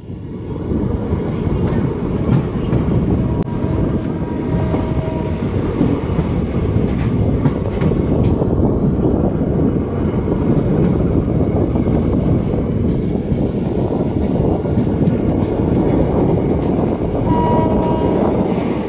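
Indian Railways passenger train running along the track, heard from an open carriage doorway: a loud, steady rumble and rush of wheels on rail, with scattered clicks of the wheels over rail joints.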